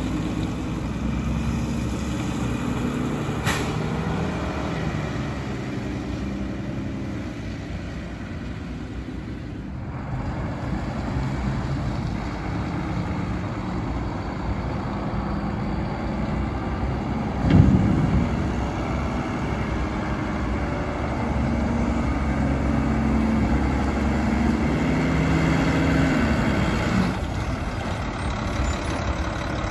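Mack LR front-loader garbage truck's engine running as the truck drives, its pitch rising and falling as it speeds up and slows. A short loud surge comes a little past halfway.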